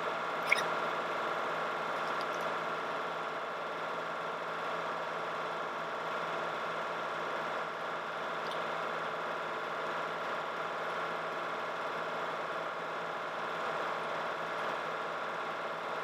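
Small engine of a portable sawmill running steadily at an even speed, with a short tick about half a second in.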